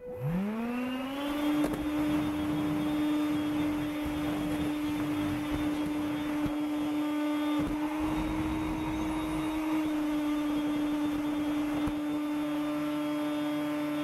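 Makita CL108FD 10.8 V cordless stick vacuum switched on, its motor whine rising to full speed over about a second and a half, then running steadily as the nozzle is pushed over wood floor and carpet.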